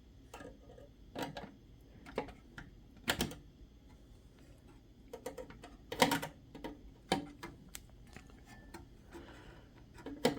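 Irregular clicks and taps of fingers working at a coin-cell CMOS battery in its motherboard socket, trying to free it from the retaining clip; the sharpest click comes about six seconds in.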